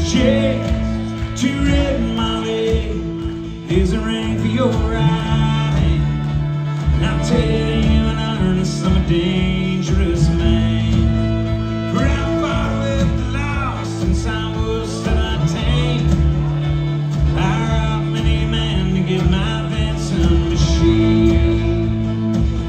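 Live country band playing an instrumental break, with plucked guitar to the fore over held bass notes.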